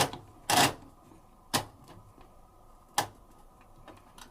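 Program selector dial of an old washing machine being turned, clicking sharply from one program position to the next, four clicks at uneven gaps of about half a second to a second and a half.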